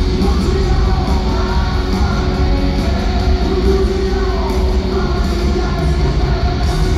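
Glam-metal band playing live at an arena concert, heard loud from the crowd through a phone microphone: distorted electric guitars, pounding drums and singing through the PA.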